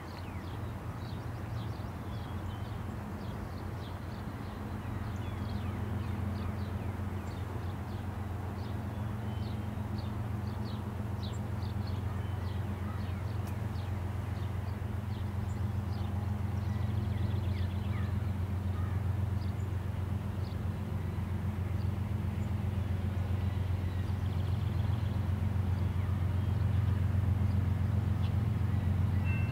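Diesel freight locomotives approaching with a steady low engine drone that grows gradually louder, while birds chirp over it.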